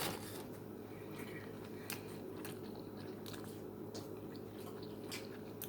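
Faint chewing and mouth clicks of a person eating a chili cheese dog, a few sharp little clicks scattered over a steady low hum.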